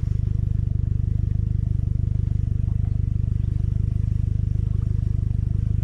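Honda four-stroke outboard motor idling: a steady low hum with a fast, even pulse.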